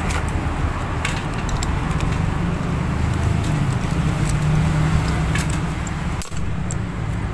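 Scattered light metallic clicks as a bicycle freehub body is unscrewed by hand and its parts are handled, over a steady low rumble of road traffic.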